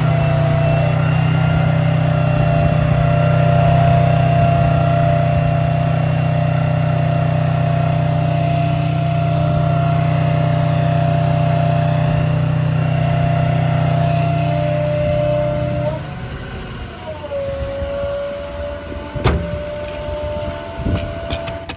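Hydraulic air compressor on a Ford F550 with a 6.0 Power Stroke diesel, switched on and running: a loud steady hum with a steady whine over it. About 16 seconds in the heavy hum cuts out, and the whine dips in pitch and carries on more quietly. A sharp click comes a few seconds later.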